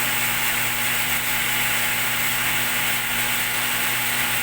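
Raw water pump and reverse osmosis pump of a water filling station running together: a steady electric motor hum with constant tones and an even hiss.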